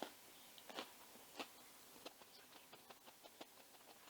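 Faint, scattered crunching clicks from chewing a breadcrumbed chicken burger in a bread roll, with near silence between them.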